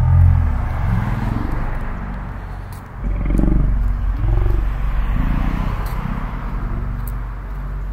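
Car traffic passing on the street, a steady hiss of tyres and engines over a low, uneven rumble that swells in surges from about three seconds in.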